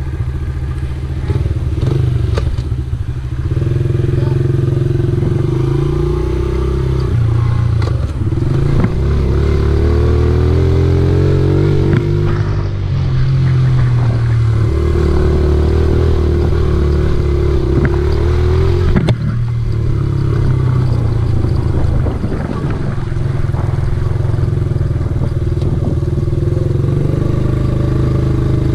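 Honda XR70R mini dirt bike's small single-cylinder four-stroke engine running as it is ridden, its pitch rising and falling repeatedly as the throttle opens and closes, with one sharp knock about nineteen seconds in.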